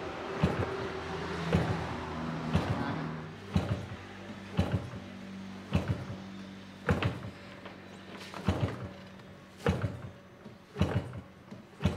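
Large model aircraft's 150cc two-stroke engine being hand-started by flipping the propeller, about once a second, each flip a short sharp knock as it comes over compression; the engine does not catch. A faint steady hum lies underneath for the first several seconds.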